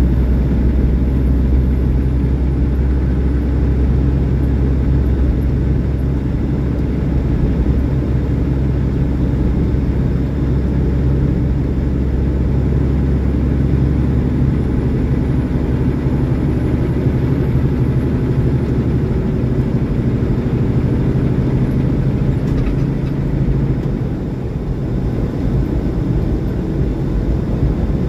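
Semi truck's diesel engine running steadily at highway cruise, with a low drone and road noise, easing off a little about three-quarters of the way through.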